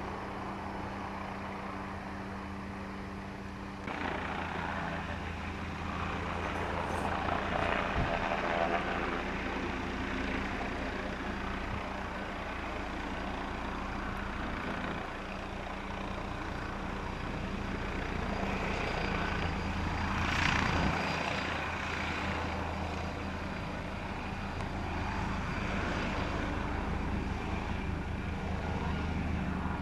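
Helicopter turbines and rotors running with a steady low hum and blade noise. About four seconds in the sound changes and grows louder, as a helicopter hovers low and climbs away.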